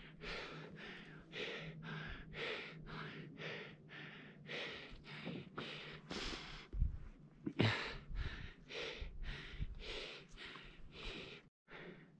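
A person breathing hard in quick, even, rasping breaths, about two a second.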